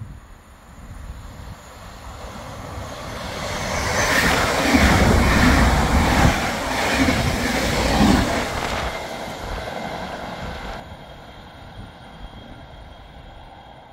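Belgian NMBS/SNCB InterCity passenger train passing through the station without stopping: its rolling noise builds up, peaks for about five seconds with a regular beat as the wheelsets go by, then fades away.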